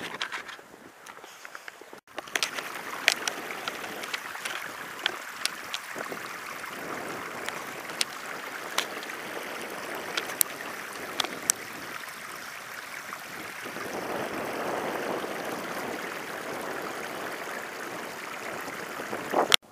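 A small mountain stream running over rocks, a steady rushing that starts abruptly about two seconds in, with scattered sharp clicks over it. A brief louder burst comes just before it cuts off at the end.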